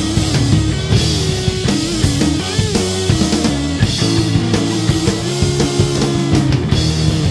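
Stoner rock recording: distorted electric guitar and bass guitar over a drum kit, playing steadily at full volume.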